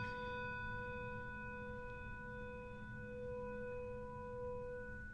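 A single handbell rung once, its clear tone ringing on and slowly dying away near the end.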